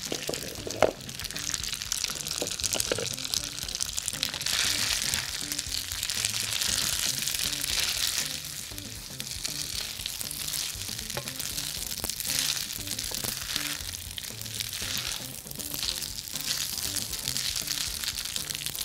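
Boiled spaghetti sizzling in ghee and garlic in a hot frying pan as it is tossed and turned, the hiss rising and easing with each toss, with a sharp knock about a second in. Soft background music plays underneath.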